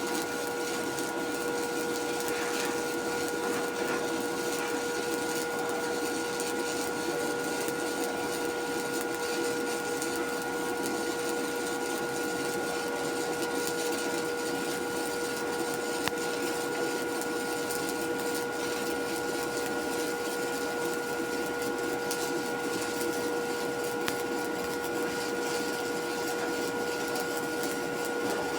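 A motor running steadily with an even hum and a few fixed whining tones.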